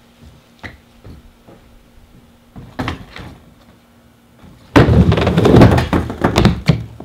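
Skateboard on a plywood mini ramp: a few light knocks as the board is set up on the deck, then about three-quarters of the way in a loud clack as it drops in, followed by the wheels rolling on the wood and the trucks clattering onto the metal coping in a feeble stall.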